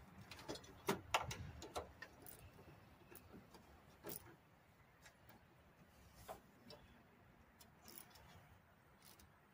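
Faint, irregular small clicks and taps of hand tools against nuts, bolts and metal parts while wires are being fastened back on, a quick cluster in the first two seconds and then scattered ones.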